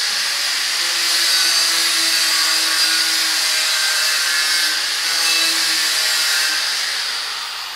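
Angle grinder with an abrasive disc grinding steel, running steadily with a high whine; it gets quieter near the end.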